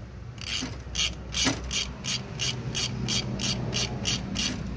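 Ratchet wrench clicking as it tightens the alternator belt tensioner adjuster on a Mercedes W123 diesel. There are a few spaced clicks, then an even run of about five clicks a second.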